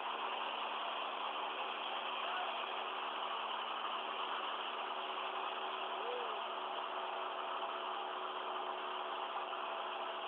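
Light aircraft's piston engine and propeller droning steadily in the cabin, a constant hum over a rushing noise.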